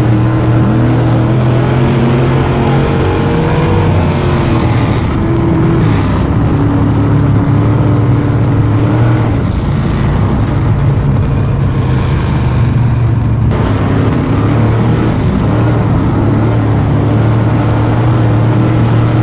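Several race car engines running at once, their pitch rising and falling as they rev.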